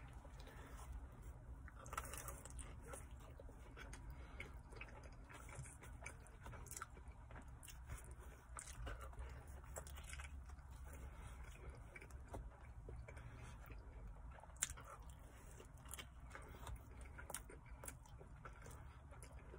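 Faint chewing and biting of a pepperoni pizza slice: soft mouth clicks, smacks and light crunches of crust over a low steady hum. There is one sharper click about fifteen seconds in.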